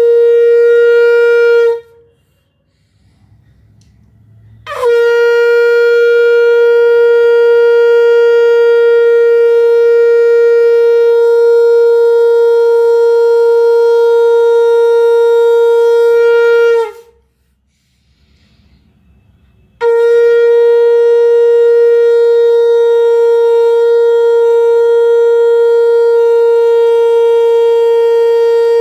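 Conch shell (shankh) blown in long, steady single-note blasts rich in overtones. One blast ends about two seconds in. The next, about twelve seconds long, begins with a short upward scoop in pitch. A third starts about twenty seconds in, with pauses of about three seconds between the blasts.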